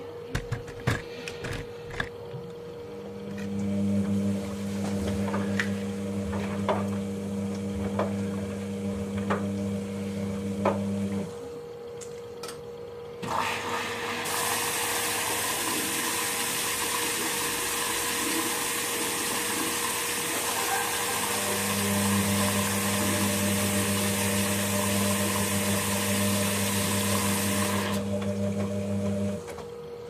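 Logik L612WM13 front-loading washing machine between stages of a cycle. A few clicks come near the start, and a steady low electric hum sounds for several seconds, stops, then returns later. About 13 s in, water starts rushing into the machine with a loud, even hiss as it fills, and the hiss stops just before the end.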